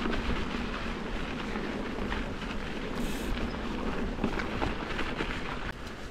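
Mountain bike riding over rough trail: wind noise on the microphone over a steady rumble, with frequent short knocks and rattles.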